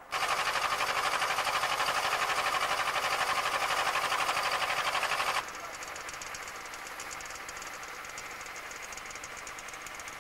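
Small engine running with a fast, even pulse, loud and close for about the first five seconds. It then drops suddenly to a quieter snowmobile engine running with a fast, regular ticking beat.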